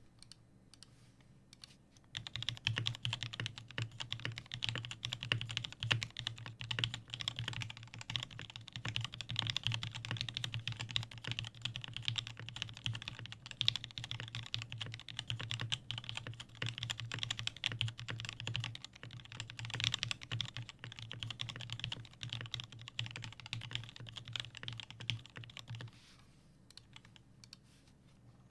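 Fast, continuous typing on a custom 60% mechanical keyboard with lubed and filmed Durock L4 Clear Purple linear switches in a steel-plated XD60 case. The keystrokes start about two seconds in and stop a couple of seconds before the end.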